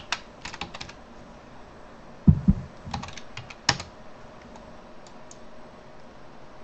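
Computer keyboard keystrokes in a quick run at the start, then two dull low thumps a couple of seconds in, followed by a few sharp mouse clicks.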